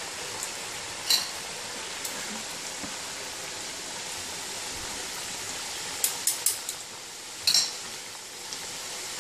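Churros frying in a pan of hot oil with a steady sizzle. A metal spoon clinks against the pan about a second in, several times around six seconds, and once more at seven and a half seconds.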